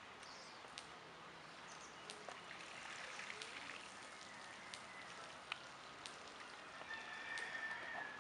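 Faint outdoor ambience: a low steady hiss with scattered small clicks and faint high chirps. A longer chirping call comes near the end.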